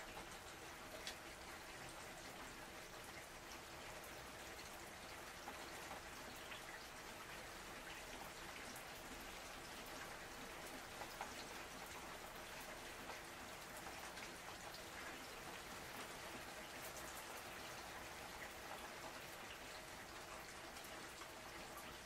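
Steady rain falling, with individual drops ticking sharply here and there.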